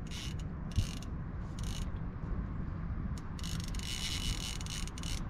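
Fishing reel drag buzzing in short spurts, with a longer run near the end, as a big catfish pulls line off against the drag.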